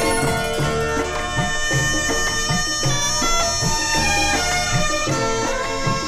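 Instrumental passage of a Hindi film song with no singing: a melody of held notes over a bass line and a steady beat.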